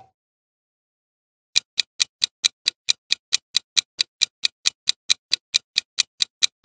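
Countdown-timer ticking sound effect: even, clock-like ticks, about four or five a second, starting about a second and a half in.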